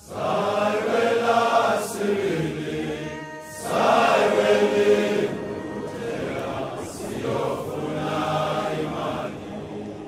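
Background music of a choir chanting in long sung phrases, with short breaks about three and six seconds in.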